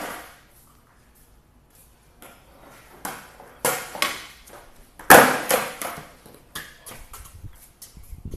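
Skateboard slapping and clattering on a concrete floor: a run of sharp cracks with echoing tails from about three seconds in, the loudest a little past five seconds, then lighter knocks.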